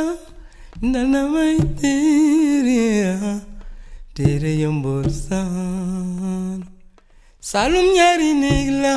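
Background music: a solo singing voice in three long phrases, with held, wavering notes and short breaks between them.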